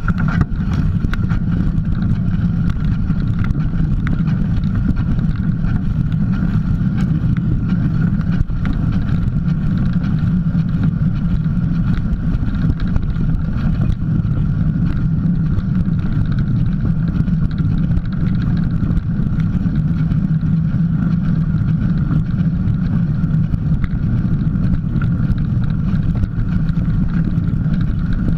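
Steady rumble and rushing wind noise from a mountain bike rolling along a dirt trail, picked up by a camera mounted low beside the front tyre.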